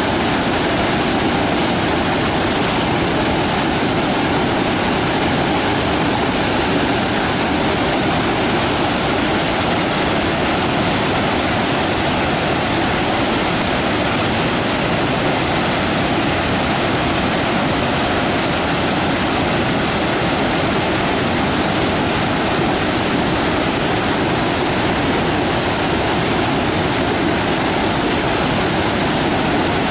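Waterfall: water pouring and crashing in a loud, steady rush.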